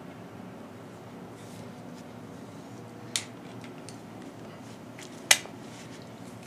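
Two sharp metallic clicks about two seconds apart, the second louder, from the mechanism of a Batwing Swinguard switchblade as it is handled, over a steady low hum.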